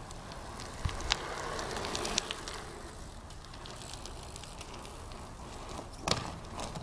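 A 2010 Eastern Growler BMX bike ridden past: the rolling of its tyres swells and fades over a couple of seconds, with a few sharp clicks early on and another knock near the end.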